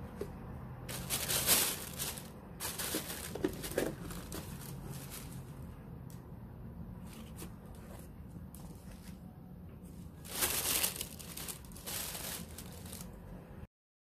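Thin plastic carrier bag and plastic wrapping crinkling and rustling in several bursts as a delivered food tray is unpacked by hand. The sound stops abruptly near the end.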